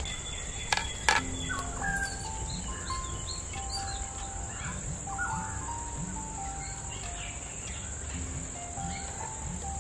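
Soft background melody of slow, held notes over a steady high chirring of crickets and scattered bird chirps. Two sharp knocks about a second in.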